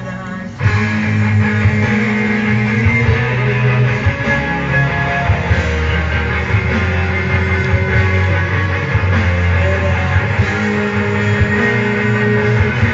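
Background pop music: an instrumental stretch of a song with guitar and bass, getting fuller and louder about half a second in.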